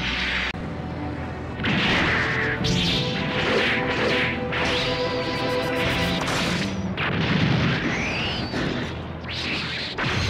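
Animated giant-robot battle sound effects: a rapid series of beam-weapon blasts, impacts and whooshes, about one a second, with a rising sweep a little after the middle, over background music.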